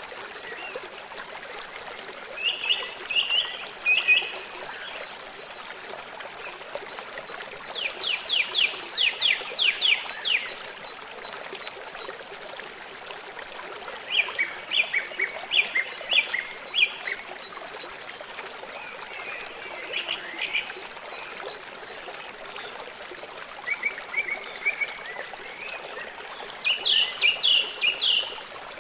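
A songbird singing short phrases of quick repeated notes, about six phrases a few seconds apart, over the steady sound of a running stream.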